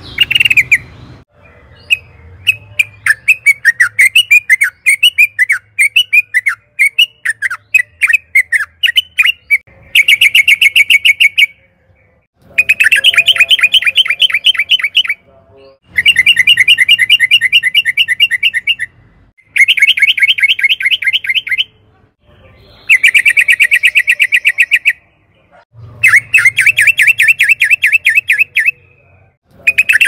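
Yellow-vented bulbul singing: first a string of short, varied chirping notes, then from about ten seconds in, six bursts of fast rolling trills, each a couple of seconds long, with short pauses between.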